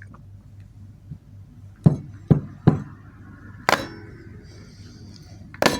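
A handheld remote control being whacked against something hard because it won't work: about five sharp knocks at uneven intervals, the loudest near the middle with a brief clinking ring after it.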